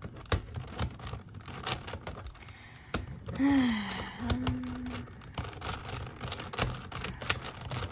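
Plastic Megaminx puzzle clicking and clacking in quick, irregular bursts as its faces are turned during a speed solve. About three and a half seconds in, a short wordless voice sound that falls in pitch, then holds.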